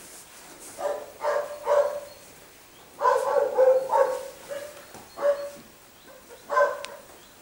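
A dog barking in short bursts: three quick barks about a second in, a run of barks around the middle, then single barks near the end.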